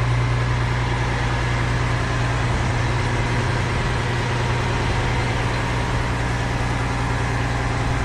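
An engine idling steadily with a constant low hum and no change in speed.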